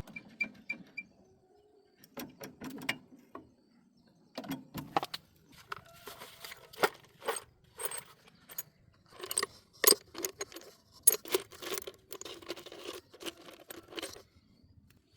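Irregular clinking and clattering of small metal objects being handled. A few clinks come at the start, then a busy run of rattles and knocks from about a third of the way in until just before the end.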